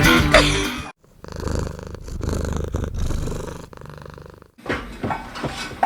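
A domestic cat purring close up, a low rough purr that swells and fades with its breathing. Before it, music cuts off about a second in, and a few short clicks follow near the end.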